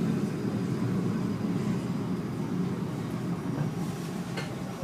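Passenger train's low rolling rumble heard from on board, dying away gradually as the train slows to a stop, with a light click near the end.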